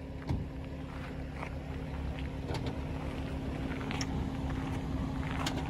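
Ram pickup engines running steadily under load as one truck tows a stuck one out of soft ground, the rumble growing gradually louder, with a few scattered knocks and clicks.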